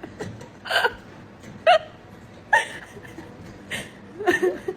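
A series of short, sharp hiccup-like sounds, five of them, about one a second.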